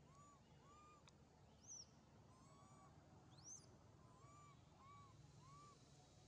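Faint bird calls over a very quiet background: a run of short, arched hooting notes, with two sharp rising chirps a little under two seconds apart as the loudest sounds.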